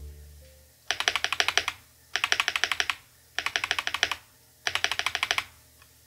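Typing on a YMDK Melody 96 custom mechanical keyboard with a beech wood case and brass plate, pre-lubed Feker Matcha linear switches, PBT cherry-profile keycaps, and foam and tape mods. The keystrokes come in four short bursts of rapid clicks, each under a second, with brief pauses between them.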